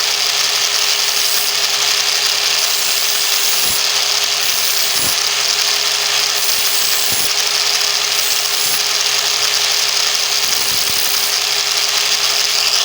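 Angle grinder with a sandpaper disc running steadily while sharpening a knife edge, its high grinding hiss swelling and easing every second or so.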